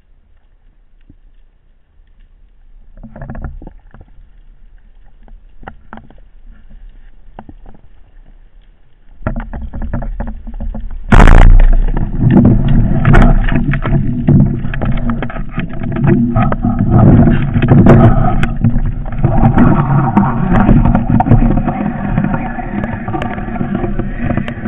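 Underwater, a speargun fires with one sharp crack about eleven seconds in, after a few faint clicks. Loud, continuous churning noise follows the shot.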